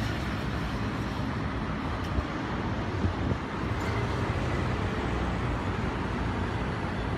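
Steady road traffic noise from passing cars, with a few brief clicks about halfway through.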